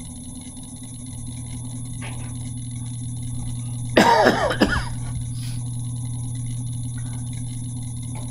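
A person coughing once, about four seconds in, over a steady low hum.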